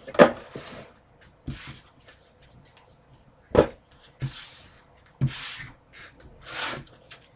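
Trading cards and an empty cardboard box being handled on a table: three sharp knocks, with short sliding, swishing rustles between them.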